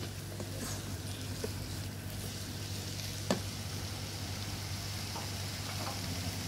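Beef and curry spice paste sizzling steadily in a pressure cooker's non-stick inner pot, with a single sharp click about three seconds in.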